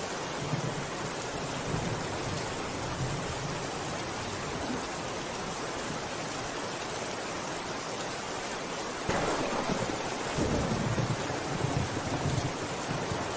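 Steady rain falling. About nine seconds in, a low rumble of thunder rolls in and the sound grows louder.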